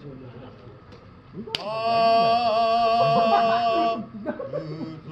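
A man singing kiyari, the traditional float-hauling work chant: after a short lull he holds one long, loud note with a wavering pitch, starting about a second and a half in with a sharp click and breaking off about a second before the end. Other voices are heard low underneath afterwards.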